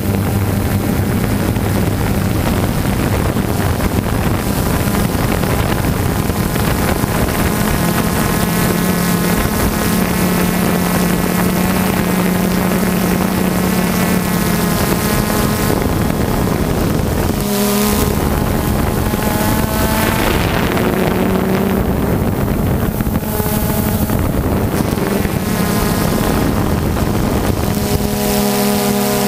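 DJI Phantom 2 quadcopter's electric motors and propellers buzzing steadily, heard close up, with wind noise on the microphone. Its pitch wavers and glides up and down in the second half, with a brief dip a little past halfway and another near the end.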